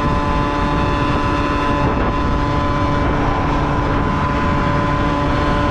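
Honda Topic moped's small engine running at a steady speed on the move, a constant drone over a heavy rumbling rush of wind and road noise.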